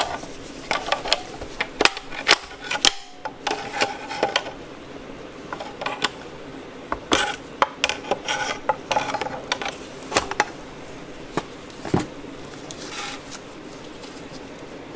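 Pry bar levering the shift fork assembly loose inside an NP242 transfer case's aluminium housing: irregular metal-on-metal scraping, clicks and knocks, fewer toward the end.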